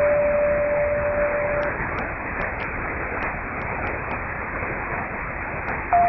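Danmarks Radio's longwave interval signal received on AM 243 kHz: a held pure tone that stops about a second and a half in, a few seconds of receiver hiss with faint static clicks, then the next, slightly higher tone starting near the end. The audio is narrow-band, as heard through an AM receiver.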